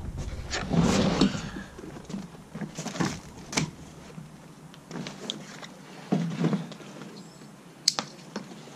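Scattered clicks, knocks and a brief rustle as an EGO battery backpack leaf blower is handled and lifted by its harness straps; the blower itself is not running.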